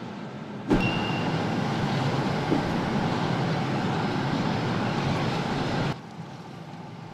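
Steady vehicle or machinery noise that cuts in suddenly about a second in and cuts off just as suddenly near the end.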